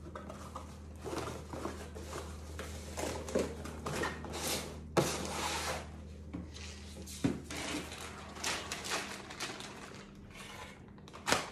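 Cardboard parts boxes and plastic packaging handled on a wooden tabletop: rustling and scraping with a few sharp knocks, the loudest about five seconds in, over a steady low hum.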